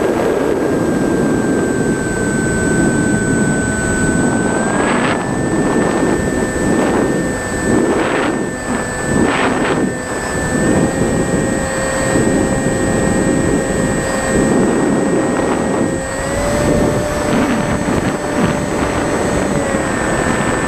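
Electric motor of a Penguin FPV model plane running in flight, a steady whine that steps up in pitch with the throttle about four and a half seconds in, again around ten seconds and sixteen seconds, and eases off near the end, over gusty wind rushing across the airframe and microphone.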